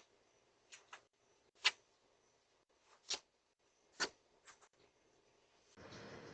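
Faint, irregular sharp clicks, about eight of them a half-second to a second apart, then a second-long burst of rustling noise near the end.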